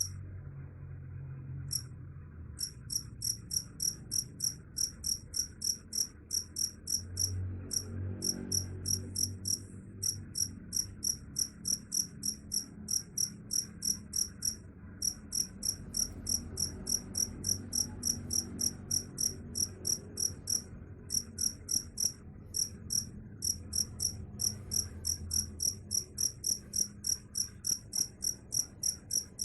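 Cricket chirping in a steady, even rhythm of about three high-pitched chirps a second, stopping briefly a few times, over a faint low rumble.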